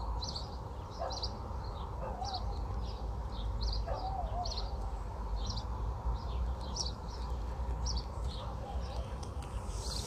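A small bird chirping over and over, about two short high chirps a second, over a steady low background rumble.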